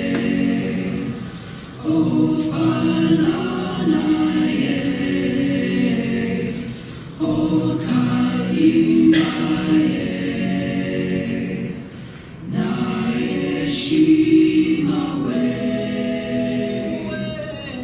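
Choir singing over the closing credits, in phrases of about five seconds with short breaks between them, fading near the end.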